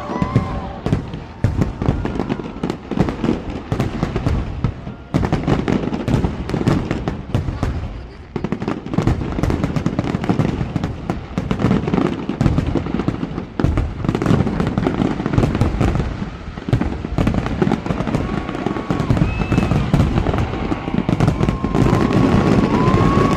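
Fireworks display going off in a dense, near-continuous barrage of bangs and crackling, with brief lulls.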